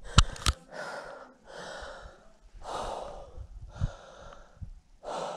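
A hiker breathing hard, drawing a loud breath in or out about once a second. Two sharp knocks come in the first half second.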